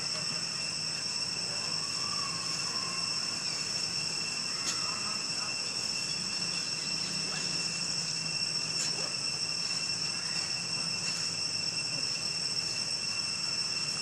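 Steady, high-pitched chorus of insects, several shrill tones held evenly without a break.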